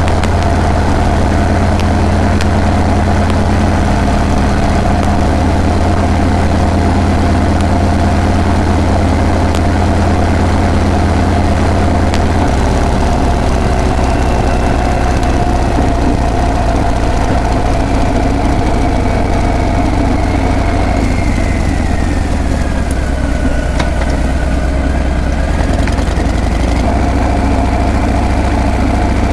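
Harley-Davidson Breakout's V-twin engine running at low revs with a steady, loud exhaust note. The pitch shifts about twelve seconds in and a couple more times near the end.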